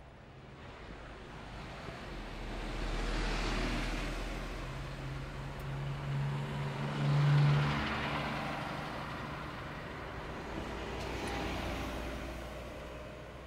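City buses, including an articulated Mercedes-Benz Citaro, driving past close by one after another with diesel engine and tyre noise. The sound swells three times, loudest about seven seconds in, where the engine hum is strongest.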